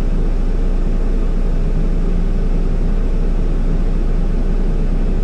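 Steady low rumble of an idling diesel engine, heard from inside a vehicle cab, unchanging throughout.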